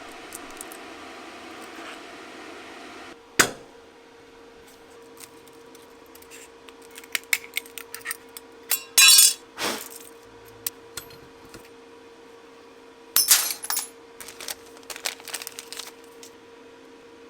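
Small repair tools clicking, clinking and scraping on an iPhone's glass and metal back during back-glass replacement: scattered light clicks, a sharp knock a few seconds in, and two short harsh scraping bursts later on, over a steady hum.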